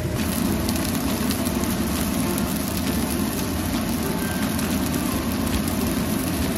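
Sliced water bamboo shoots sizzling and bubbling steadily in oil and cooking liquid in a wok: a dense, even crackle.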